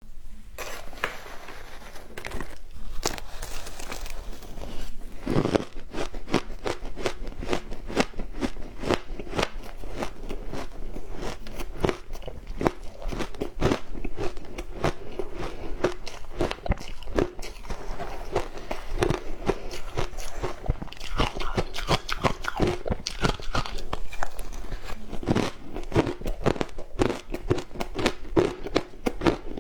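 A person biting and chewing frozen matcha ice, a dense run of sharp crunching and crackling as the ice breaks between the teeth.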